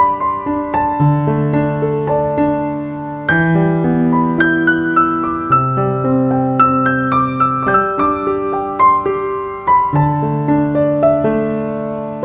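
Background piano music: a slow, gentle melody over chords that change every couple of seconds.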